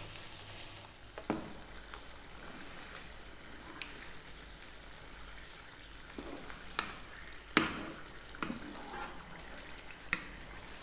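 Creamy tomato sauce simmering in a nonstick frying pan on medium heat, stirred with a wooden spoon that scrapes and knocks against the pan now and then. The sharpest knock comes about two thirds of the way through.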